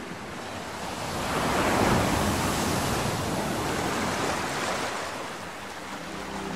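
Sea water rushing and splashing, mixed with wind on the microphone; it swells about two seconds in and eases toward the end.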